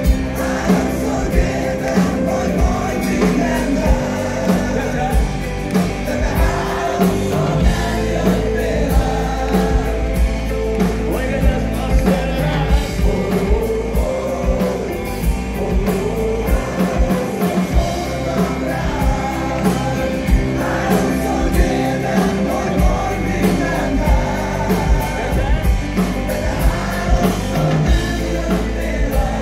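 A rock band playing live with a male lead singer: a steady drum beat of about two hits a second under bass, guitars and vocals.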